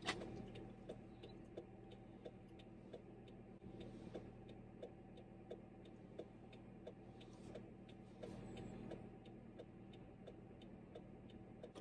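Faint, even ticking, several ticks a second, over a low steady hum inside a car's cabin.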